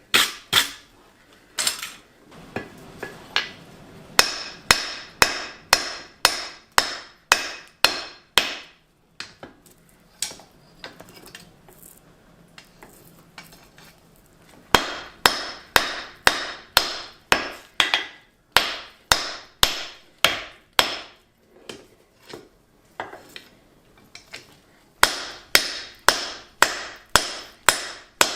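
Hammer blows on a block of hot 4140 steel on the anvil, knocking down its corners: runs of sharp strikes about two a second, broken by short pauses.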